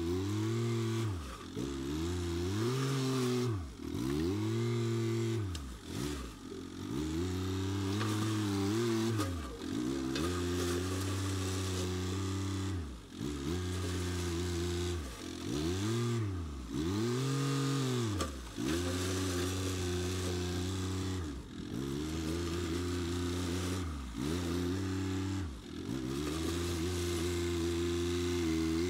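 Compact tractor engine running while its front loader pushes and spreads crushed gravel. The engine note repeatedly dips and climbs back every second or two as the load comes on and off.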